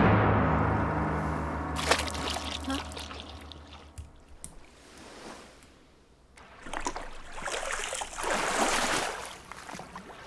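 Low, dark score music with a drum fades out over the first few seconds, with a sharp click about two seconds in. In the second half, water splashing and sloshing swells up as a shark thrashes in shallow water.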